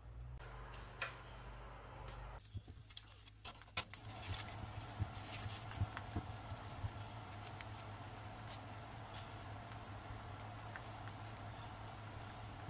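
Aluminium foil crinkling in many small irregular clicks as hands fold it around a rolled tortilla wrap, starting about four seconds in, over a steady low hum.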